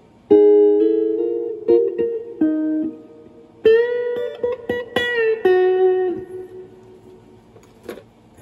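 Electric guitar with humbucker pickups played clean through a Fender Princeton Chorus solid-state 2x10 amplifier. It plays single-note lead phrases with string bends, letting notes ring and fade, and trails off near the end.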